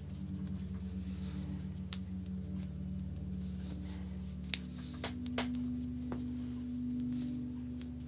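Slow ambient background music of sustained low held tones, changing to a new note about halfway through. A few light clicks and two soft rustles of hands rubbing on skin during the foot massage sit on top.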